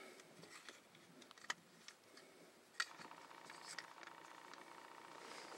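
Near silence with a few faint, sharp clicks and a faint steady high tone setting in about three seconds in.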